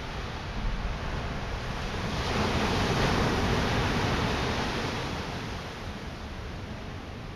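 Ocean surf breaking on a rocky shore: a steady rush that swells about two seconds in as a big wave breaks, peaks, then eases back near the end.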